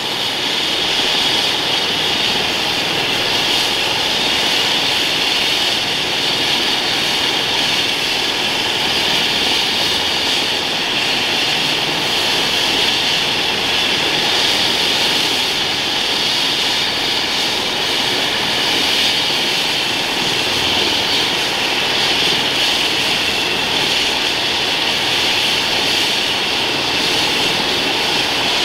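Airbus H135 helicopter's twin turbine engines running on the ground during start-up, a steady high turbine whine with the main rotor turning. The level holds even, with no rise or fall.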